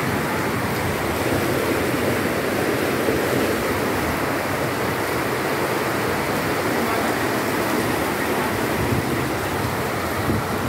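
Steady rush of a muddy flash-flood torrent pouring down a street.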